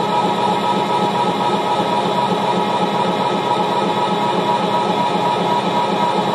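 Live minimalist electronic music built from phase-shifted short loops, played from a laptop and mixer: a loud, steady, dense noisy drone with a constant low hum and a brighter ringing band above it.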